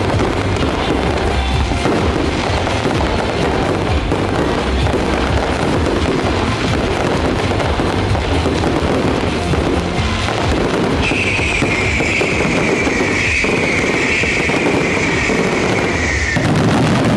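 A fireworks display with music: dense, continuous bangs and crackling from bursting shells. A high held tone slides slowly down in pitch from about two-thirds of the way through until just before the end.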